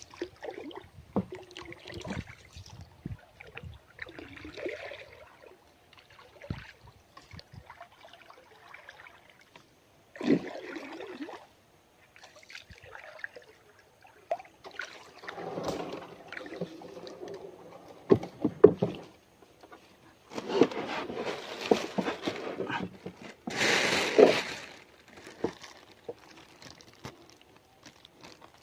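Water sloshing and splashing, broken by irregular knocks and handling noises, with louder bursts about a third of the way in and again past the middle.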